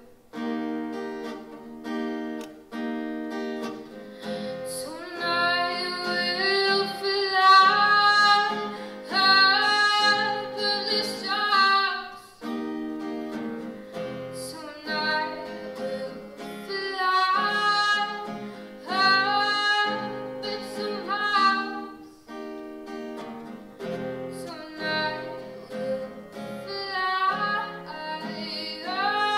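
A woman singing and playing acoustic guitar. The guitar chords play alone at first, and her voice comes in about four seconds in and carries the melody over them, pausing briefly between sung lines.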